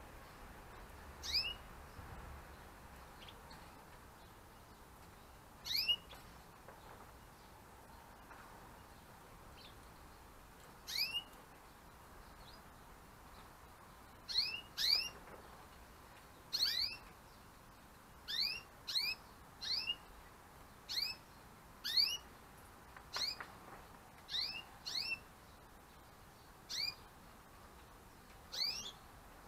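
Gloster canaries giving short, rising chirp calls. A few come singly at first, then they come more often, about one a second, sometimes in quick pairs.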